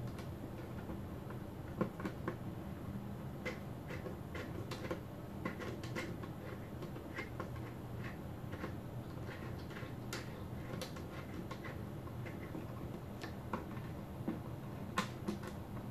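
Small irregular clicks and taps of metal coaxial cable connectors being screwed tight on a Ubiquiti Rocket M5 radio and knocking against its plastic case. A few sharper clicks stand out over a low steady hum.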